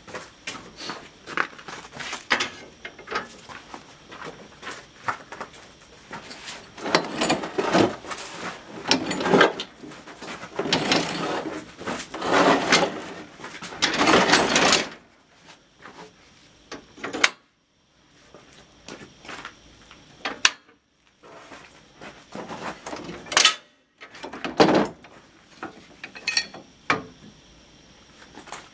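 Steel snowplow blade and frame being shifted and pushed onto the vehicle's plow mount: repeated metal clanks and knocks, with longer grating scrapes in the middle. After that it goes quieter, with a few sharp knocks near the end.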